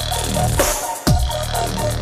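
Beatbox through a loop station: layered, looped vocal sounds build an electronic track, with deep bass sweeps falling in pitch about every second and a half over held mid tones and quick high hi-hat-like ticks.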